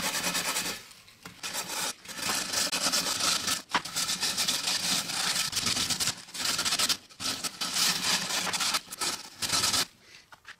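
Steel wool scrubbing over the wet painted face of a metal sign to strip off the loosened paint, in runs of strokes broken by short pauses. The scrubbing stops near the end.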